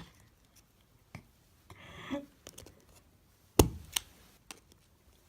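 Old Nokia flip phone snapping shut with one loud sharp click about three and a half seconds in, then a smaller click. Its hinge still shuts the phone despite attempts to disable it. Fainter handling clicks and a short rustle come before.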